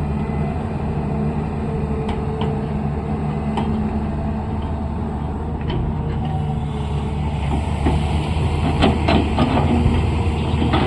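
Engine of a heavy earthmoving machine running steadily with a deep hum. Near the end come several sharp clanks and knocks.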